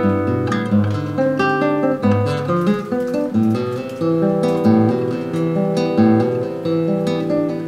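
Background music: an acoustic guitar playing a quick run of plucked and strummed notes.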